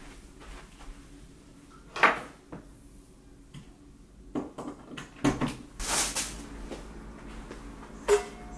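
Scattered knocks, clunks and rustling of someone handling a walking-pad treadmill and its cable: one sharp knock about two seconds in, a cluster of knocks and rustling around five to six seconds, and a last knock near the end with a short faint ringing tone after it.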